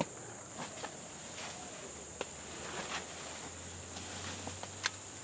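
A steady high-pitched insect drone fills the background, with a few sharp snaps and rustles of footsteps and twigs breaking in the undergrowth.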